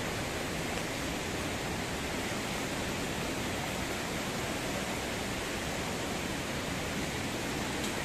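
Steady rush of a fast-flowing river over rocks, an even, unchanging noise.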